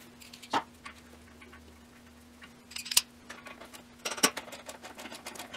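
Ratchet on a 13 mm deep socket and wobble extension clicking in short runs of rapid clicks, with a few sharper knocks, as the catalytic converter's flange nuts are worked loose. A steady low hum runs underneath.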